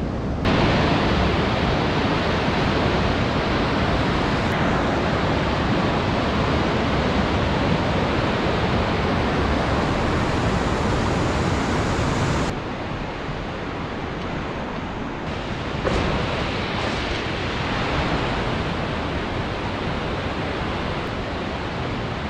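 The Soča river rushing through the narrow rock gorge below: a loud, steady rush of water, its level shifting abruptly twice.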